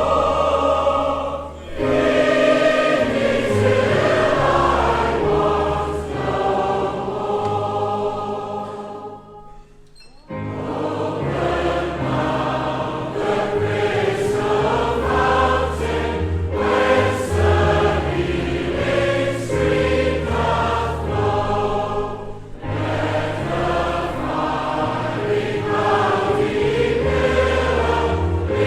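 Choir singing a hymn, with a short break about nine seconds in before the singing resumes.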